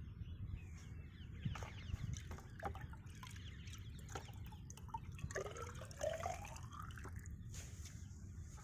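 Water trickling from a plastic measuring cylinder into the water-filled inner ring of a double-ring infiltrometer, topping it up to replace what has soaked into the soil. A bird call rising in pitch comes about five to six seconds in.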